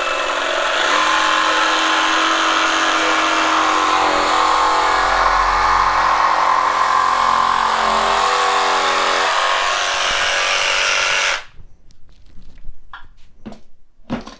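Flex 24V cordless jigsaw in A mode cutting a curve through a softwood pine board, the motor running steadily with its pitch shifting as the blade loads. It stops suddenly about eleven seconds in, followed by a few short knocks.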